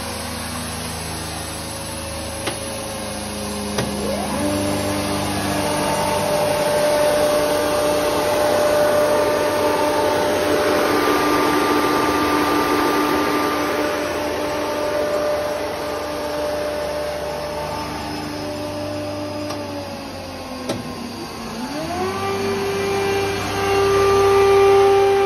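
Weinig PKA 14 N four-sided moulder running, its spindle and feed motors humming with several steady tones over a whirring noise. About twenty seconds in, one tone falls away and a higher one rises and holds as the machine gets louder.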